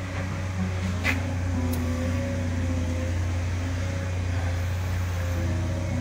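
Steady low mechanical hum, with a short click about a second in.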